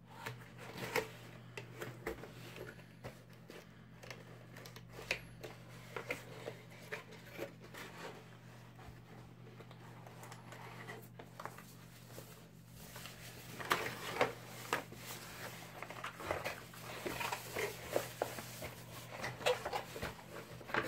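Unboxing handling: cardboard box flaps opened and a keyboard slid out of its white wrapping sheet, giving irregular rustling, scraping and light knocks. The sounds grow busier in the second half as the wrapping is handled.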